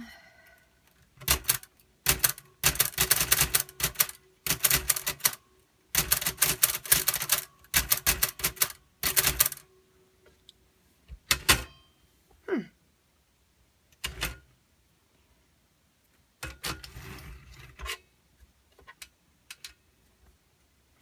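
We R Memory Keepers Typecast manual typewriter keys being struck in fast runs of clacking, several bursts over about eight seconds. Then come a few single clicks, a brief falling squeak, and a shorter run of key strikes near the end.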